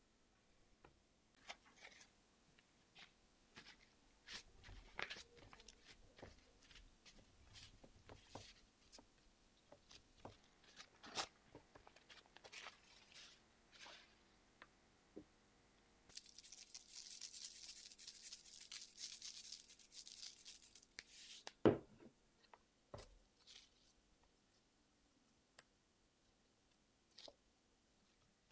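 Quiet food-prep handling of raw peeled shrimp on a paper towel over a tray: scattered soft taps and clicks, a few seconds of rustling past the middle, then one sharper knock.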